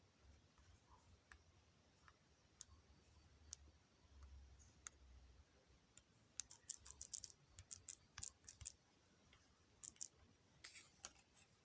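Faint, irregular clicks and taps, a few at first, then a quick run of them in the middle and another cluster near the end.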